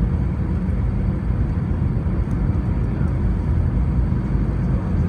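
Airbus A320 cabin noise during the landing roll: a steady low rumble of engines, airflow and wheels on the runway, heard from a window seat over the wing.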